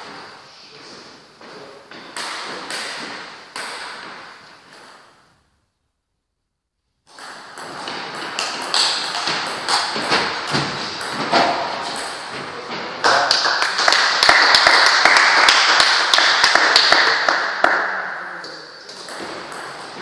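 Table tennis play: the plastic ball clicking sharply off the bats and the table, with footsteps and voices. The sound cuts out completely for about two seconds around five seconds in. A louder, busier stretch follows from about thirteen to eighteen seconds in.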